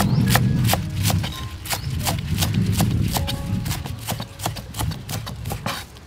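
A broad cleaver-style knife chopping green onion stalks on a wooden chopping board: a steady run of crisp chops, about three a second, each with a dull thud from the board.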